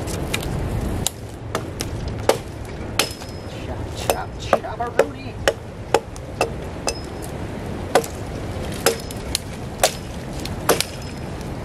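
Hammer blows on wood while a ladder is being built, about twenty sharp irregular strikes, a few with a short metallic ring. Wind rumbles on the microphone for the first second, then cuts off.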